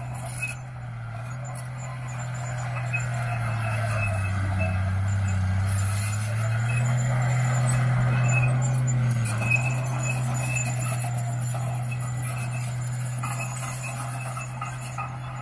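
Small crawler bulldozer's diesel engine running under load as the blade pushes soil, its pitch sagging about four seconds in and climbing back up around seven seconds, with light metallic clinks throughout.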